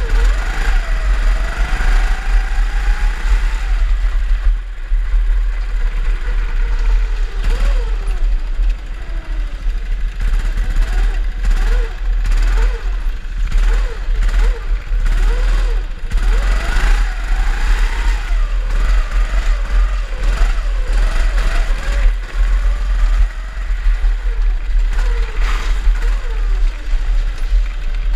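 Drift-kart engines revving up and down over and over, their pitch rising and falling, over a heavy low rumble.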